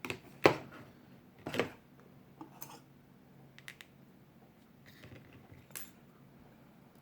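Scattered small clicks and taps of hand tools and phone parts being handled on a work bench during an iPhone 7 Plus screen replacement, two sharper clicks in the first two seconds and lighter ticks after.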